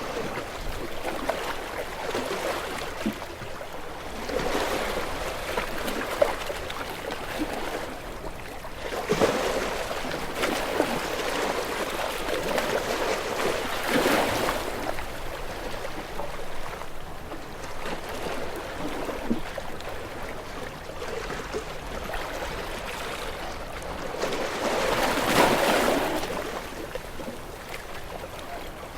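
Sea waves breaking and washing against shore rocks, swelling every few seconds with a crackle of spray and water draining back. The biggest surge comes near the end.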